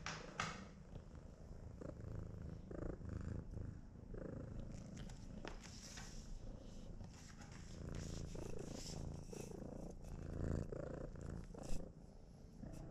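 Domestic cat purring close to the microphone, a steady pulsing low rumble, with scattered soft knocks and rustles. The sharpest knock comes near the end.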